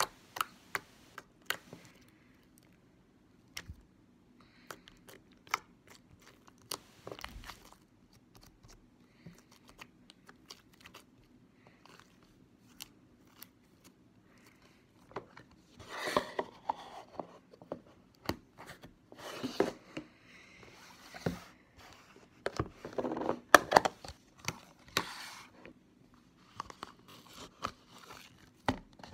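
Glitter slime being squished, pinched and folded by hand, giving sticky clicks and small pops. The crackling grows denser and louder about halfway through and is loudest about two thirds of the way in.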